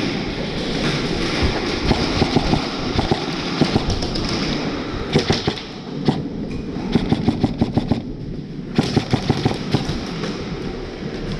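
Airsoft guns firing several short rapid bursts of shots, about seven or eight a second, over a steady noisy background.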